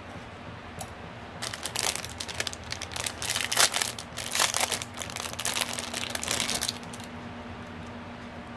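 Thin clear plastic bag crinkling and crackling in the hands for about five seconds as a beaded bracelet is worked out of it.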